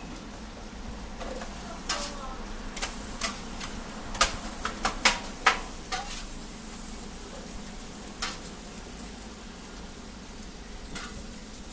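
Egg pancakes sizzling steadily on a flat-top griddle, with a metal spatula clacking and scraping against the griddle in a quick run of sharp knocks about two to six seconds in, and once more about eight seconds in.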